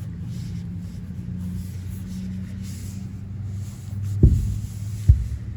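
A steady low mechanical hum, with two dull low thumps about four and five seconds in.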